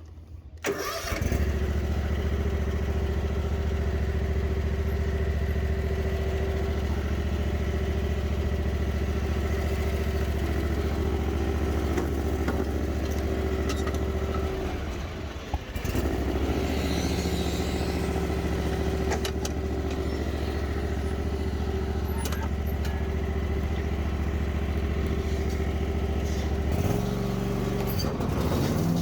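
Husqvarna zero-turn mower engine running steadily while mowing. It comes in suddenly about a second in and dips briefly about halfway through. Near the end its pitch drops and then climbs again.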